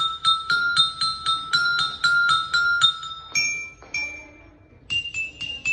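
Peking, the small high-pitched gamelan metallophone, playing a melody: quick struck ringing notes at about four a second, slowing to two longer-held notes in the middle, then picking up again on higher notes near the end.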